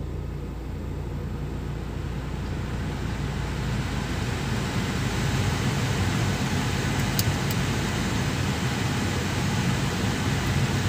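Toyota Altis idling with the air conditioning running, heard from inside the cabin: a steady low engine hum under the rush of the dashboard blower fan, which grows louder over the first few seconds. Two light clicks a little past halfway.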